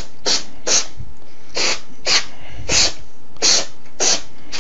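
Aerosol cleaner can sprayed onto a circuit board in short hissing bursts, about eight quick squirts at uneven spacing.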